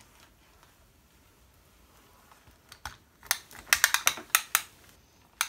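A retractable tape measure being handled and drawn across the canvas: a quick run of sharp clicks about three seconds in, and one more click near the end.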